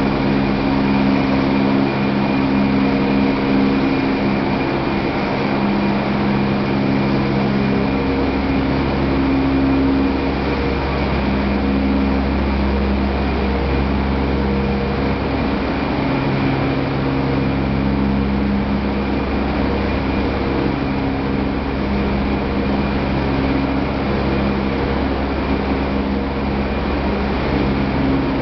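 Corn wet-milling processing machinery running steadily: a loud, even hum with several fixed tones over a broad mechanical noise. A deeper drone comes in about eight seconds in, drops away briefly and returns.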